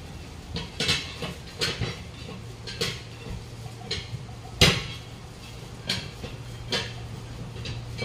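Irregular metal clinks and knocks from hand tools striking and levering on a truck wheel during tyre removal, with one loud metal strike a little past halfway.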